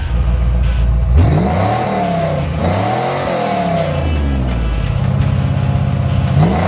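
1982 Chevrolet Corvette's Cross-Fire Injection V8 through its dual exhaust, idling and then revved while parked: two quick rises and falls in pitch, a steady idle, and another rev starting near the end.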